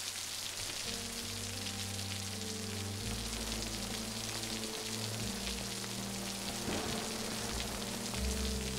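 Steady rain pouring down, a dense even hiss. Low held notes of background music come in underneath about a second in.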